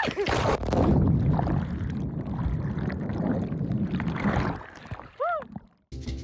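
A splash as a person jumps into the sea, then a muffled rush of bubbling water heard from under the surface for several seconds. A short high cry comes about five seconds in, and the sound cuts off suddenly just before the end.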